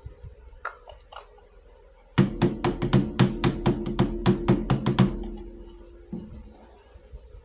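Pieces of a miniature toy kitchen set being handled: a few light clicks, then a quick run of sharp taps, about five a second for three seconds, with a low ringing that fades out after the last tap.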